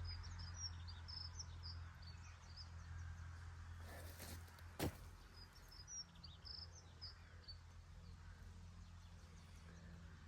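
A songbird twittering in quick high chirps, in short bursts, with a single sharp click a little before halfway.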